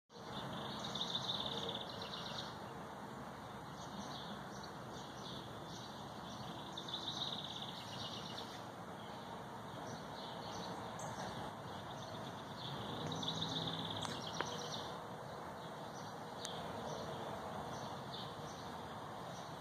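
A songbird singing a short high-pitched phrase about every six seconds, over a steady background hum of outdoor noise.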